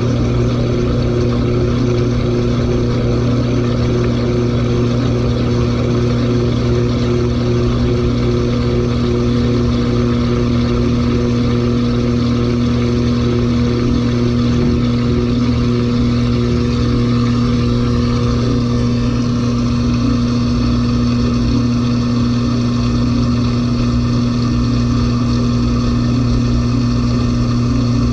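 LG 18 kg washing machine in its final spin, drum running steadily at speed with a steady hum; a faint higher whine joins about two-thirds of the way through. The drum is overloaded with clothes.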